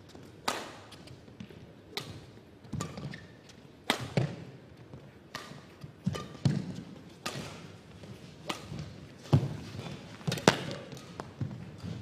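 Badminton rally: rackets striking the shuttlecock with sharp cracks, about eight hits spaced one to two seconds apart, with lower thuds of the players' footfalls on the court.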